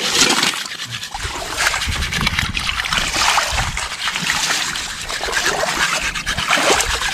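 Sea water sloshing and splashing as capiz shells are rinsed in a steel pot dunked in the shallows.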